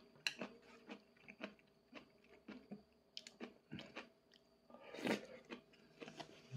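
A man chewing a mouthful of nabeyaki udon with cabbage, close to the microphone: soft, irregular wet mouth clicks and smacks, with one louder brief rush of noise about five seconds in.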